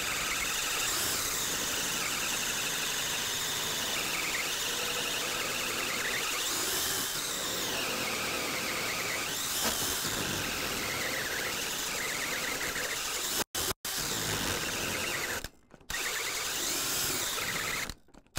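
A cordless drill drives a 3.5-inch carbide-tipped hole saw deep into a wooden beam, running steadily under heavy load with a whine that rises and falls. The saw is cutting hot enough to make the wood smoke and strain the drill. Near the end the drill stops briefly three times and starts again.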